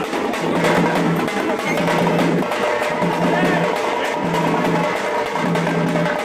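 Music with fast, dense drumming and a low note repeating in short blocks.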